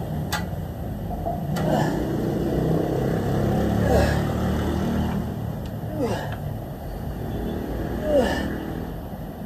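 A man's short effortful grunts, each falling in pitch, about one every two seconds as he works through dumbbell curl reps, over a steady low rumble of city traffic. A single sharp click just after the start as the dumbbell is picked up.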